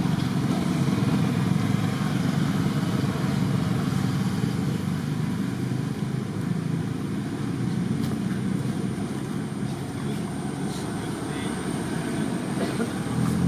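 An engine running steadily, a low rumble that eases slightly about ten seconds in and picks up again near the end.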